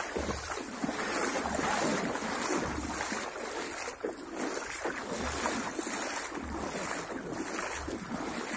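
Water splashing and sloshing around legs wading knee-deep through a flooded pond, with short rumbles of wind on the microphone.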